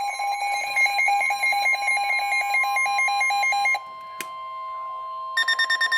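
NOAA Weather Radio warning alert: a steady 1050 Hz alarm tone under rapid electronic beeping, about five beeps a second. The beeping stops a little before four seconds in and is followed by a click. A higher, faster beeping starts near the end.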